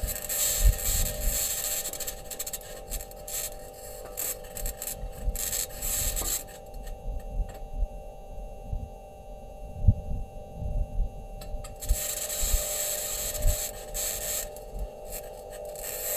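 Perseverance rover recording of the rover driving on Mars: grinding and scraping of the wheels on rock over a steady hum, with irregular low knocks. The scratchy hiss drops away for several seconds in the middle, then returns.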